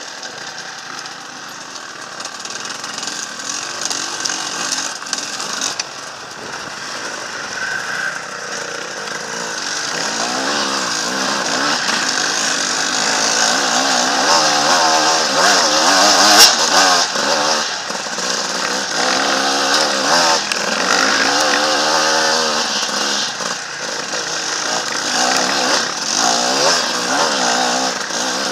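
Enduro motorcycle engine running under the rider, its revs rising and falling over and over, heard through an onboard camera with wind and rattle noise. A single sharp knock comes a little past halfway.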